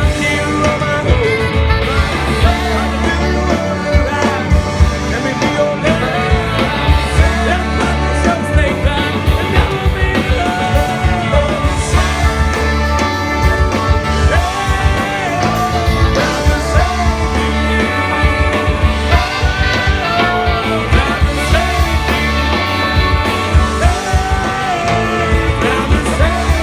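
Live rock band playing with a steady beat and heavy bass, a melodic lead line arching over it.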